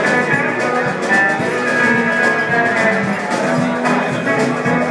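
Country band playing live: guitars over a steady drum-kit beat.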